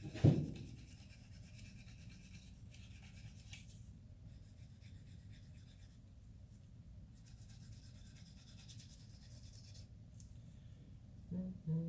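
A single sharp knock, then a faint steady low hum with light, scratchy handling sounds.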